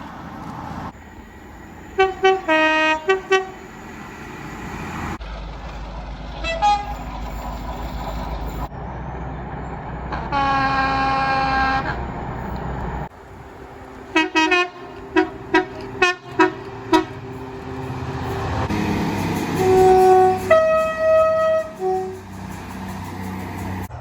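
Train horns sounding in a run of separate clips: a few short blasts, then one long blast of about two seconds near the middle, a quick series of short toots, and a few longer blasts near the end. A low steady rumble sits under the horns, and the sound changes abruptly between clips.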